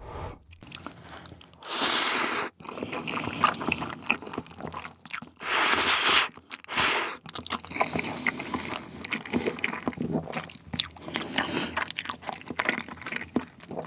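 Close-miked slurping and wet chewing of jjapaghetti noodles: long hissy slurps about 2 s and 6 s in, a shorter one just after, then steady small clicks and smacks of chewing.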